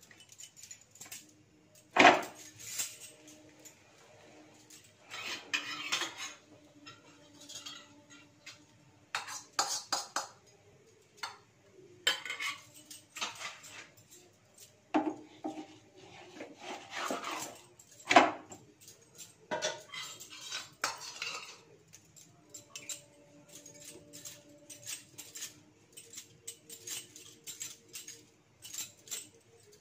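Metal spatula and utensils clinking, knocking and scraping against a tawa griddle and dishes in irregular bursts while a stuffed paratha is laid on and turned. The sharpest knocks come about two seconds in and about eighteen seconds in.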